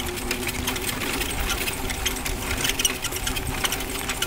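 Sacco dog cart rolling along a dirt track behind two trotting dogs: a fast, continuous clatter and ticking from the wheels and frame over a low rumble, with a steady hum underneath.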